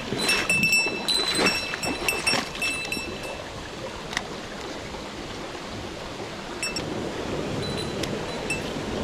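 Mountain stream water running steadily. Over the first few seconds comes a quick series of sharp ticks with a short ringing tone, and a few single ticks follow later.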